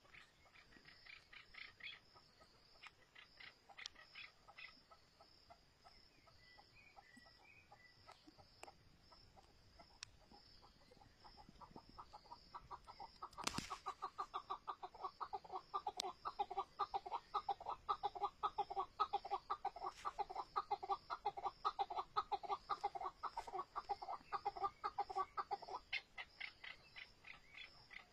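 Chukar partridge calling: a long, rapid run of clucking notes that starts about twelve seconds in and goes on for some thirteen seconds, over steady high insect chirping. There is a single sharp knock just as the calling builds.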